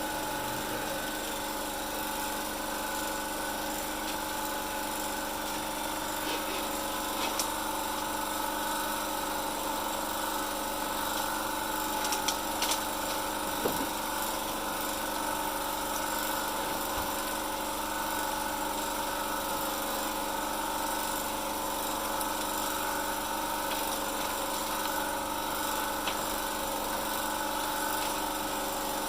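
A small engine running at a steady speed, an even droning hum, with a few light clicks about halfway through.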